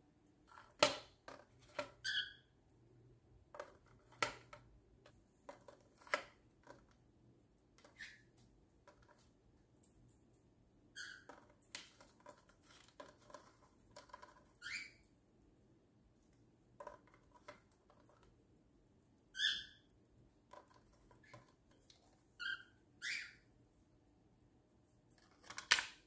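Cockatiel pecking and prying at the plastic lid of a peanut can, making irregular sharp taps and clicks, with short chirps now and then.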